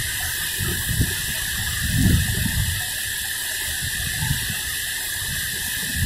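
Heavy rain falling with a steady hiss, while strong wind buffets the microphone in low, uneven gusts, the strongest about two seconds in.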